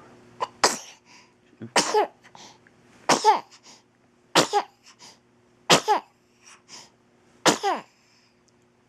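A fit of six sneezes in a row, about one every second and a bit. Each is a sharp, loud burst with a short, falling-pitch tail, and a quick intake of breath just before it.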